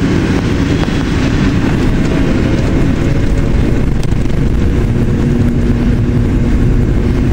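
MD-80 jetliner's rear-mounted Pratt & Whitney JT8D engines running, heard from inside the aircraft as it rolls on the runway: a loud, steady rumble and rush, with a faint steady hum that comes in about five seconds in.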